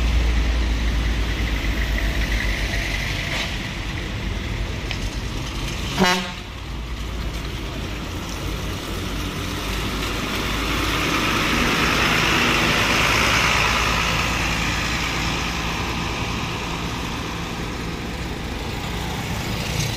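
Road traffic: motor vehicles running with a steady low rumble, a single sharp knock about six seconds in, and a broad swell of road noise around the middle.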